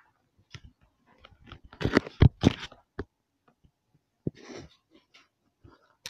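Household clutter being shifted by hand: scattered knocks, rustles and clatters of plastic and paper, loudest in a cluster about two seconds in, with a short scraping rustle a little after four seconds.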